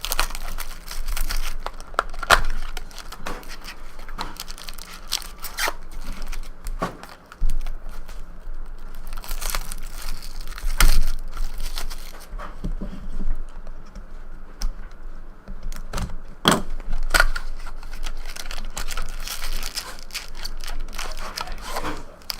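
Trading card packs being torn open, their wrappers tearing and crinkling in irregular bursts, with sharp crackles and handling noise throughout.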